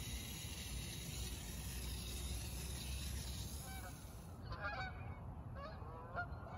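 A flock of geese flying overhead and honking: a string of short calls that rise and fall in pitch, starting about halfway through. Before the calls there is a steady hiss that fades out as they begin.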